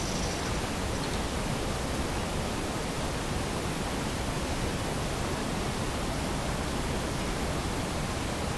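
Steady hiss of a gain-boosted night field recording, with one very faint tick about a second in.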